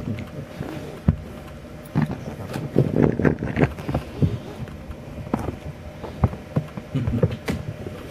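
A dog right against the microphone, its fur rubbing and its body bumping the camera, giving irregular soft knocks and thumps with scuffling in between.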